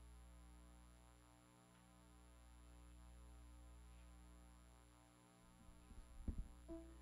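Near silence with a steady low electrical hum; about six seconds in, a few sharp knocks, and just after them an electronic keyboard starts playing a held note.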